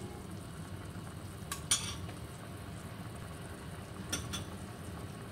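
A metal spoon clinks against a cast-iron pot and a bowl in two short bursts, about a second and a half in and again about four seconds in, while foam and kelp are skimmed from simmering beef-and-radish soup. A steady low rumble runs underneath.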